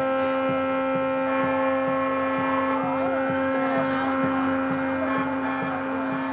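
A loud, steady hum made of one low tone with many even overtones, over a faint low pulse repeating a few times a second.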